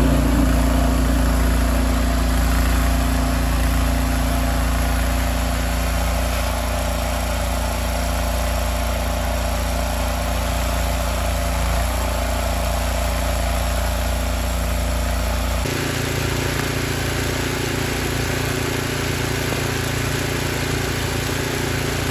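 Engine of a 1999 DR Brush Mower converted to a snow plow, running steadily as it pushes snow. The engine sound changes abruptly about two-thirds of the way through.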